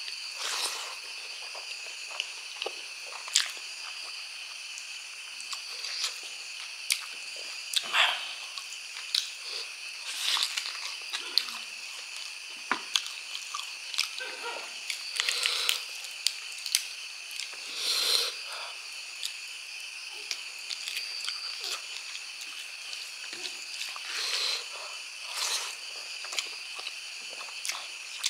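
Close-up mouth sounds of a person eating braised pork trotter and rice by hand: biting and wet chewing, with some crunching, in short irregular bursts over a steady faint high hum.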